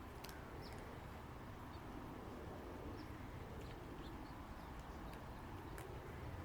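Faint outdoor background of steady low rumble, with scattered soft, short, high-pitched ticks and chirps.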